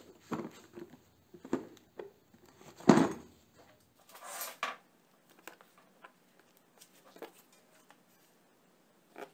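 Handling noise on a workbench: a few separate knocks and taps, the loudest about three seconds in, then a short scraping rustle and scattered light clicks as objects are set down and moved around.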